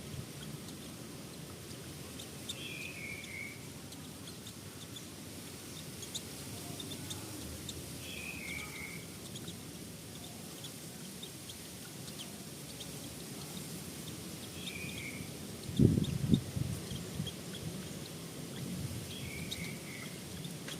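A bird calling a short falling series of three or four clear notes, repeated five times at intervals of about five to six seconds, over a steady low rumble of background noise. A brief loud low rumble about three-quarters of the way through.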